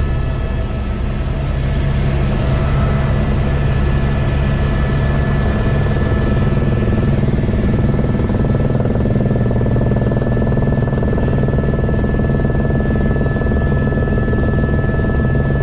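Helicopter in flight heard from inside the cabin: a steady, loud drone of rotor and engine with a thin, steady high whine above it.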